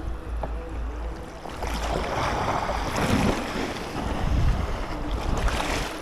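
Sea waves surging and washing, with wind buffeting the microphone; one swell builds about two seconds in and another surges near the end.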